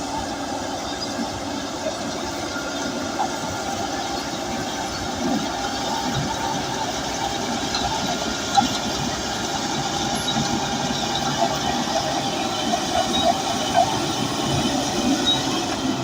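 Bulldozer working: its diesel engine running steadily under the metallic clatter and squeak of its steel tracks.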